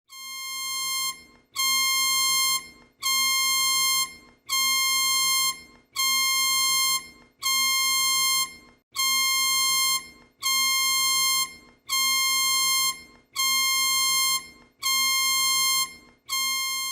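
Electronic emergency alarm tone: a buzzy, steady-pitched beep about a second long, repeated about every one and a half seconds, a dozen times, with short gaps between.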